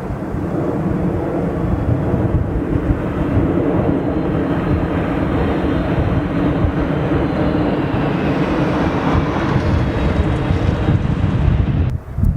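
Boeing 747's four jet engines running loud and steady, a deep rumble with a faint whine rising in pitch through the middle. The sound cuts off abruptly near the end.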